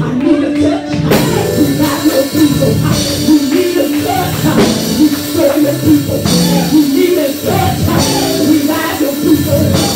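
Lively live gospel music with drums, and a woman's voice singing over it through a microphone.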